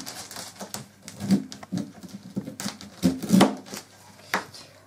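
A knife cutting the tough stalk end off an ear of sweet corn on a newspaper-covered table, with husks rustling and paper crackling between irregular sharp knocks and clicks.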